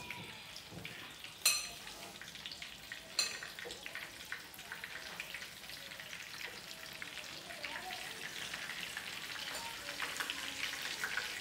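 Egg-battered cabbage fritters sizzling in oil in a nonstick frying pan. Two sharp clinks of utensils against the pan come about a second and a half in and again about three seconds in, and the sizzling grows louder over the last few seconds.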